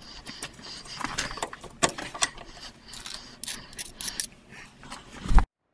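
Irregular metal clicks, scrapes and rattles as the bearing end cap of a Meteor wood lathe headstock is worked loose and pulled off the spindle. The loudest click comes near the end, and then the sound cuts off suddenly.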